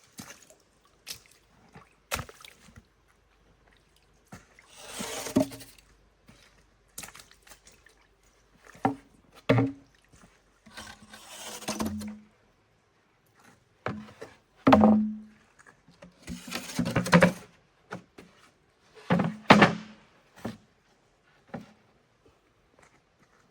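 Irregular knocks and brief scraping sounds, a second or two apart, as objects are handled and worked.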